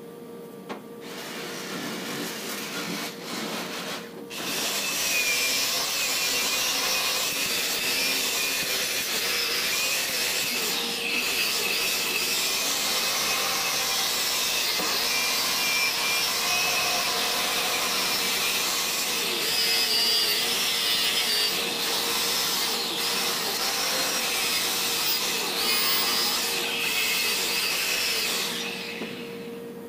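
Electric angle grinder with a wire wheel scouring rust off a steel rear axle housing tube, a steady whir with a rough scraping hiss. It gets louder after about four seconds and eases off near the end.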